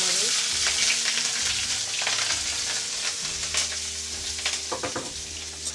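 Sliced onion and green chillies sizzling in hot oil with cumin seeds in a metal kadai, stirred with a metal spatula. The sizzle is loudest at the start and eases off, with a few scrapes of the spatula near the end.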